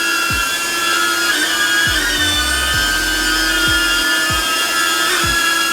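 DJI Avata's ducted propellers and motors whining steadily in a hover, the pitch wavering slightly a few times as the throttle shifts. Background music with a steady kick-drum beat plays over it.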